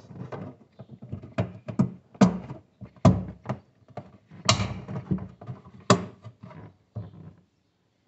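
A refrigerator's plastic cover being pushed back into place at the bottom of the cold plate: a series of sharp plastic knocks and clicks against the liner, with rattling handling between them.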